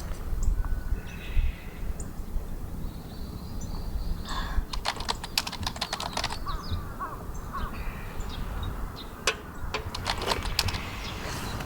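A crow cawing a few times outdoors, over a steady low wind rumble, with two short runs of sharp clicks and taps about halfway through and again near the end.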